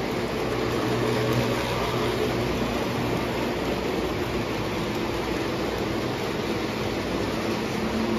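Lionel O gauge electric toy trains running on three-rail track: a steady rumble of wheels on the rails with a low electric hum.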